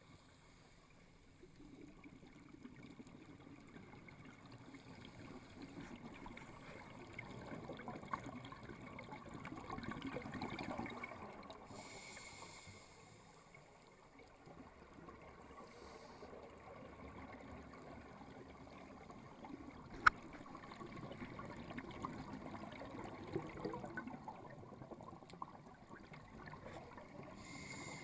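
A scuba diver's breathing heard underwater: a long bubbling exhale through the regulator that swells and fades, then a short hiss of air on the inhale, with another hiss starting near the end. A single sharp click comes about two-thirds of the way through.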